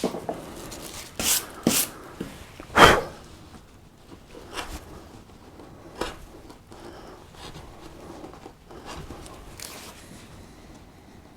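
A hand carving gouge cutting into wood, setting in the edge of a recess: a few short, sharp cuts and scrapes spaced a second or more apart, the loudest about three seconds in.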